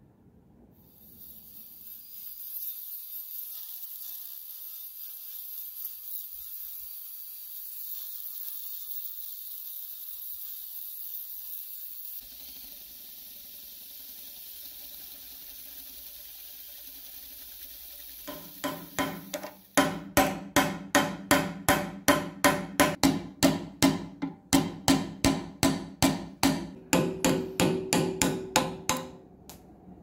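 Hammer blows on a steel spiral shaft held in a bench vise, in a quick steady run of about two dozen ringing metal strikes, about two and a half a second, in the second half.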